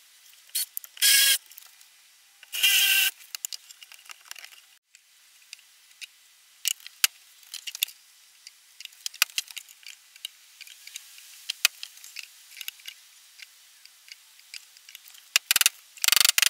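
Small clicks and taps of wooden parts and tools being handled, with two short scraping squeaks about one and three seconds in. Near the end a wooden mallet knocks on the lid of the wooden box several times in quick succession.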